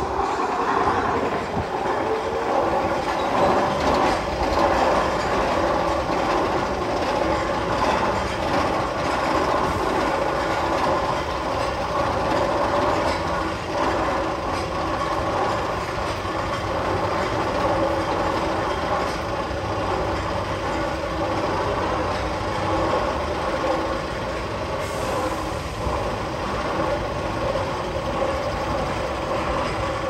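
A steady train-like rumbling and clattering from a sound effect played over speakers in the Magnum XL-200's tunnel.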